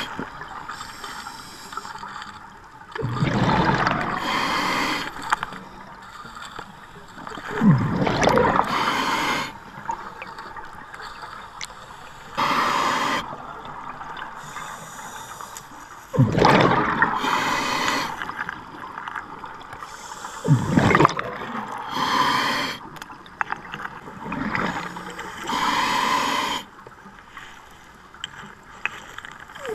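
Scuba diver breathing through a regulator underwater: hissing inhalations alternating with rushes of exhaled bubbles, a breath every few seconds.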